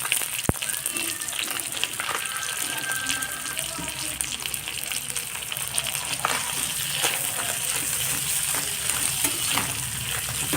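Onion frying in hot oil in a pan with fried fish pieces, sizzling steadily, with a spatula stirring and now and then knocking against the pan.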